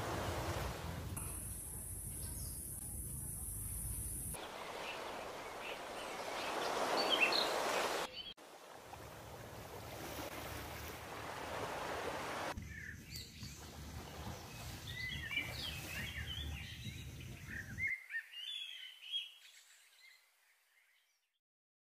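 Seaside nature ambience: a rushing wash of wind and small waves, then birds chirping in the trees from about halfway through. The sound fades out near the end.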